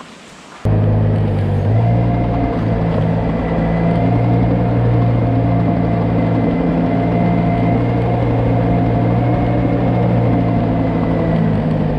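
An engine running steadily at constant speed, cutting in abruptly less than a second in.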